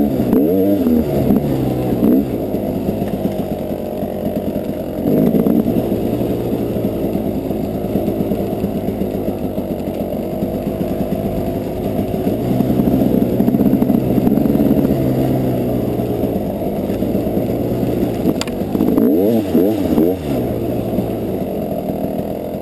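KTM dirt bike engine running with a muffled sound, its pitch rising and falling with the throttle near the start and again near the end, steadier in between.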